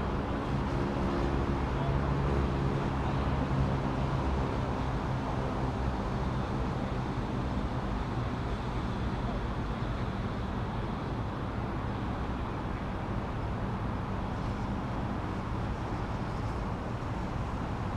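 Steady low rumble of a running vehicle, with a humming drone that is clearest in the first few seconds and then fades into the rumble.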